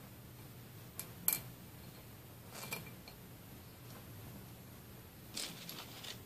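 Small seashells clicking against the glass bowl and each other as they are pushed into sand, a few scattered light clicks, the sharpest about a second in and a short cluster near the end.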